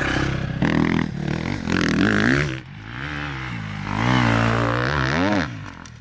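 Four-stroke enduro motorcycle with an Akrapovic exhaust, accelerating hard in several surges. The engine pitch climbs and falls with the throttle. The longest rise comes late and drops away about five and a half seconds in.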